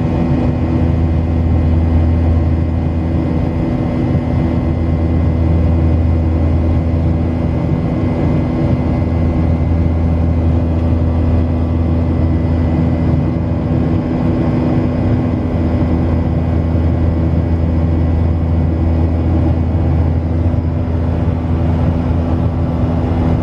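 A steady engine drone heard from inside a vehicle: a constant low hum with a few steady tones over a rushing noise, unchanging throughout.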